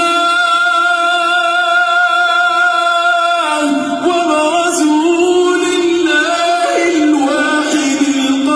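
A man chanting Quranic recitation unaccompanied, holding a long steady note for about three and a half seconds, then moving to a new pitch with winding melodic turns.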